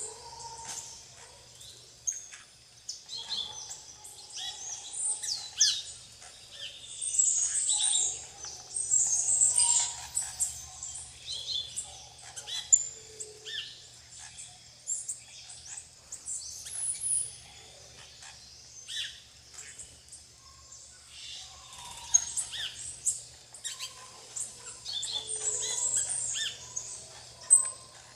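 A feeding flock of plain parakeets and other small birds calling. Many short, shrill, high chirps overlap in busier bursts, some of them sweeping in pitch.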